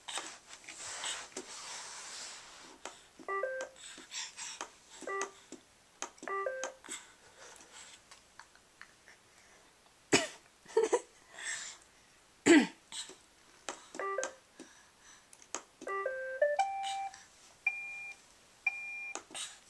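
Roomba robot vacuum playing short electronic beep tunes several times over, with scattered clicks and knocks in between; the vacuum motor is not running.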